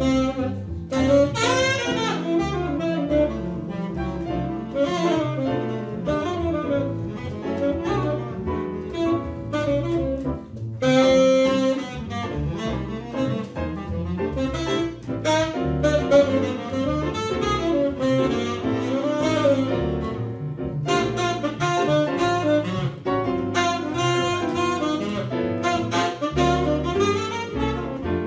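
Tenor saxophone playing a quick-moving jazz solo line over piano and double bass accompaniment.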